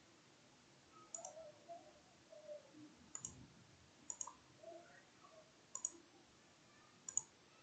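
Computer mouse button clicking: five sharp single clicks, one to two seconds apart, against a faint quiet background.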